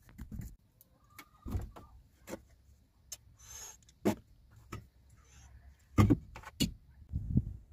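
Scattered light knocks and clicks of drink containers (a plastic water bottle, a cup and a drink can) being handled and set down in plaster-lined dashboard cup holders, the sharpest knocks about six seconds in.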